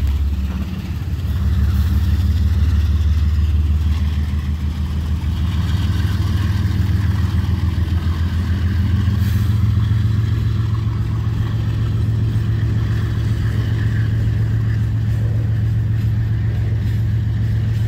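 Freight train rolling slowly past: a steady low rumble and hum from the cars and the diesel locomotives, stepping up slightly in pitch about halfway through.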